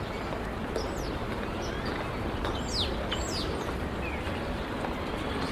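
City park ambience: a steady hum of distant city noise with small birds chirping, a few short falling chirps coming in the middle.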